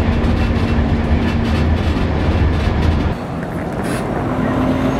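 Passenger train running at speed, heard from inside the carriage: a loud low rumble with fine rail clatter. About three seconds in it cuts to street noise, with a city bus passing and a steady engine hum.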